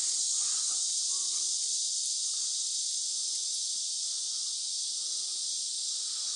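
Steady, high-pitched chorus of crickets and other insects.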